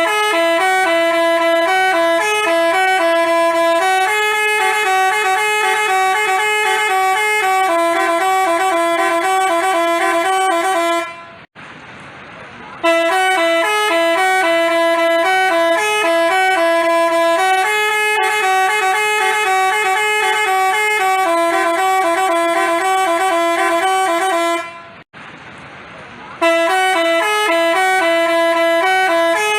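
Basuri 'telolet' multi-tone bus horn playing a tune of quick stepping notes. The tune plays three times, with short breaks about 11 and 25 seconds in.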